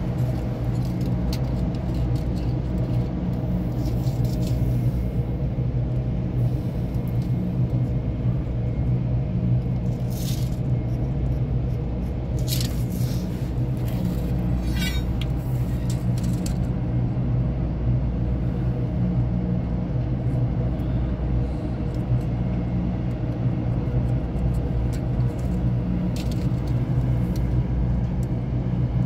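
Steady low rumble of a running engine nearby, with a few short clicks and scrapes near the middle.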